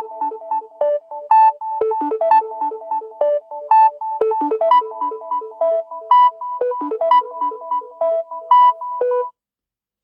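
Samsung Galaxy A20 ringtone: a quick, bright melody of short synthesized keyboard-like notes, several a second, which stops about nine seconds in.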